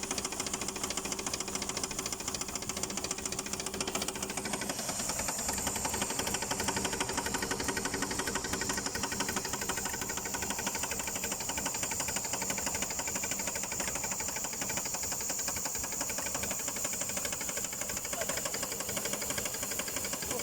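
Chery Elara 2.0 engine running with a fast, steady ticking knock. The owner likens it to a hydraulic lash adjuster (lifter) knocking.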